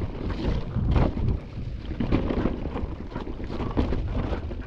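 Wind buffeting the microphone during a mountain bike ride, with irregular knocks and clatter from the bike going over rough ground.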